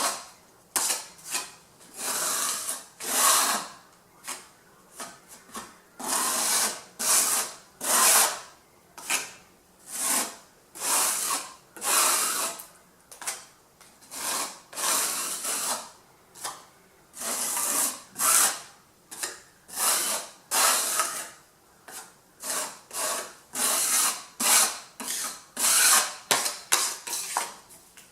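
Rough rubbing strokes of a hand-held abrasive worked back and forth over a hard surface, coming irregularly at one to two strokes a second with short pauses.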